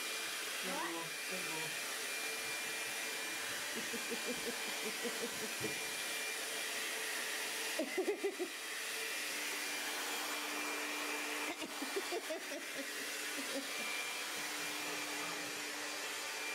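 Handheld hair dryer running steadily with an even airy hiss, aimed at the wet seat of a man's jeans to dry them. Brief bits of voices and laughter come through it.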